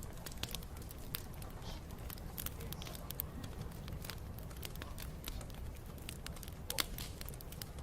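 Wood bonfire crackling: irregular sharp pops and snaps over a steady low rumble, with one louder pop near the end.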